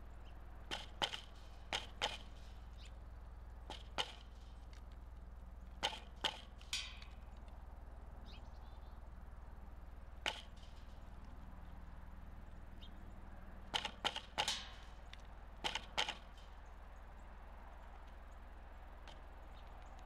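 Pileated woodpecker pecking at a suet block and seed on a wooden platform feeder: sharp knocks, some single and some in quick runs of two or three, with pauses of several seconds between them.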